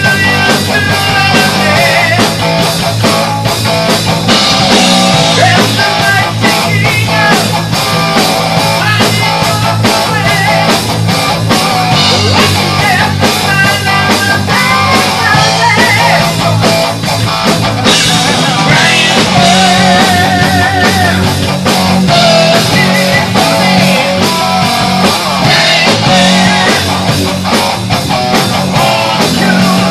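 Live heavy rock band playing loud, with distorted electric guitars and a drum kit keeping a steady beat.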